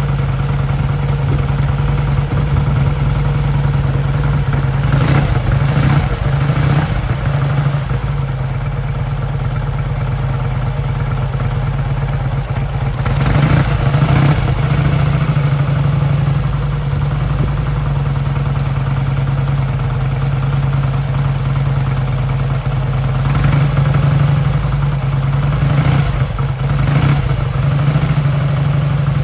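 1954 Vincent V-twin motorcycle engine idling as it warms up after a cold start, swelling briefly louder several times.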